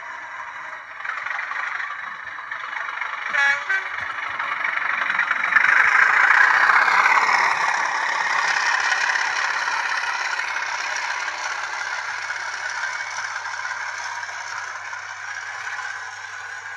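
Bachmann Class 37 model locomotive's factory-fitted DCC sound decoder playing its diesel engine sound through the model's small speaker. The sound builds about five seconds in and then slowly eases off. A short two-part tone comes about three and a half seconds in.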